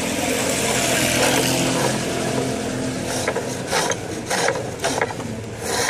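Hand-held chisel cutting a spinning wooden spindle on a bow lathe: a steady scraping hiss of shavings coming off at first, then rhythmic scrapes about twice a second as the bow drives the work back and forth.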